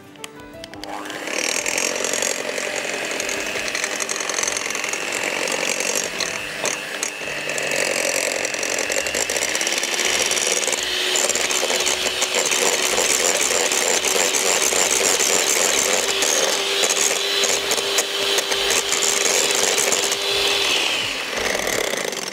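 Electric hand mixer running, its beaters whisking butter, sugar and eggs into cake batter in a glass bowl. It starts about a second in and stops just before the end, with a steady motor whine added from about halfway.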